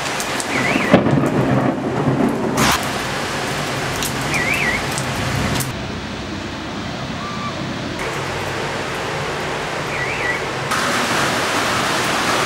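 Heavy rain pouring down in a thunderstorm, a steady rushing hiss, with a low rumble of thunder between about one and two and a half seconds in. The rain sound shifts abruptly in tone and level every few seconds.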